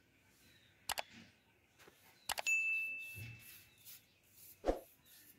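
Sound effects of a subscribe-button overlay: two quick mouse clicks about a second in, then more clicks followed by a bright bell ding that rings on for about a second. A single thump comes near the end.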